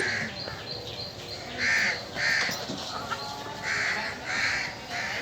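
Crows cawing over and over, the short harsh caws coming mostly in pairs about half a second apart.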